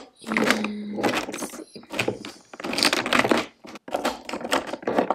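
Plastic lip gloss and lipstick tubes clattering and clicking against each other as a hand rummages through a drawer organizer of makeup, in repeated bursts of rattling with short pauses between.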